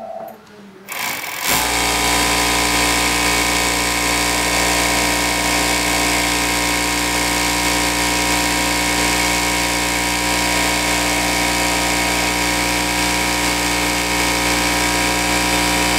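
Atlas AT797 industrial four-thread overlock machine starting about a second and a half in, then running steadily as it sews a narrow rolled hem on fine fabric.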